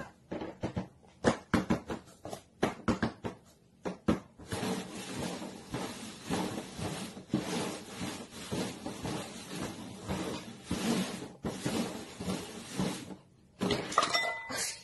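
Paper cups being tapped down and slid around on a cardboard box: a string of sharp taps at first, then a long stretch of continuous scraping and rustling as the cups are shuffled. A short, higher-pitched sound comes near the end.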